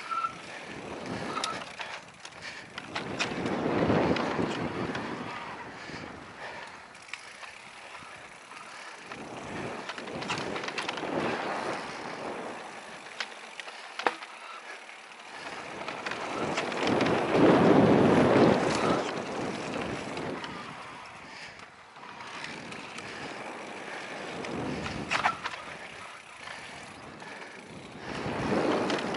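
Mountain e-bike riding down a dirt trail: tyres running over packed dirt, wind rushing over the microphone that swells and fades several times, and scattered sharp clicks and rattles from the bike.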